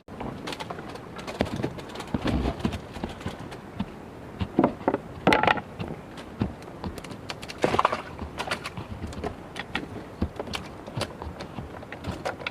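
Irregular knocks and clatter, with a few louder bursts about halfway through.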